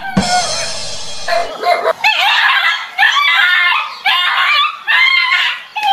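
A dog barking in repeated bursts while it tackles a stuffed toy tiger. A harsher, buzzy cry lasts about a second and a half near the start.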